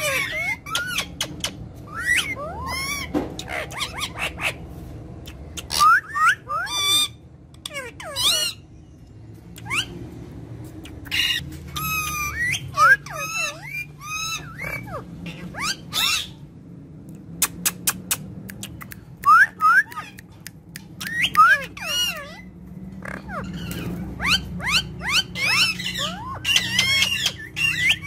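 Several Alexandrine parakeets calling and chattering: bursts of short squawks and whistled, sliding notes, with brief pauses between clusters of calls.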